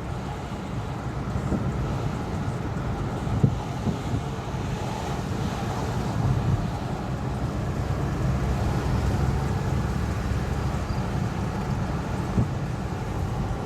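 Steady low rumble of a moving vehicle with wind buffeting the microphone, and a brief knock about three and a half seconds in.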